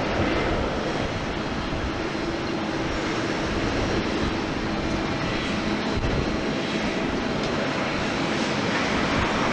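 Jet engines of an ANA Boeing 737-800, a steady rushing noise with a faint low hum, holding at an even level.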